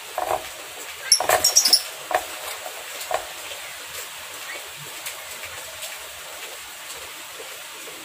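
A lovebird being grabbed by hand inside a round wire cage: a burst of cage rattling and a few short, shrill squeaks about a second in, then it goes quieter.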